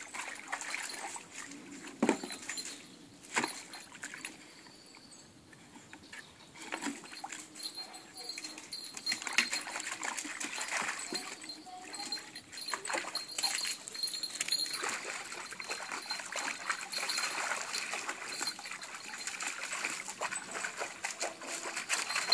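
A Malinois–Brittany spaniel cross dog playing in water in a wheelbarrow tray: irregular splashing and sloshing as it snaps and paws at the water, with a couple of sharp knocks early on and a quieter lull a few seconds in.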